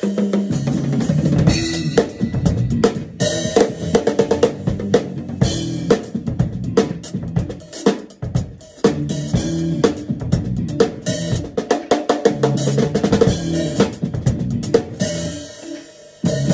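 Acoustic drum kit played with sticks in a funky groove of drum strikes and cymbal hits, with a brief break about eight seconds in and another near the end.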